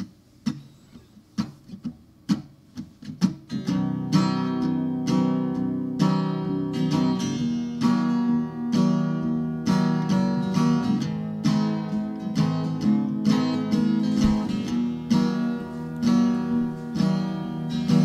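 Background music on acoustic guitar: a few single plucked notes at first, then steady strumming from about four seconds in.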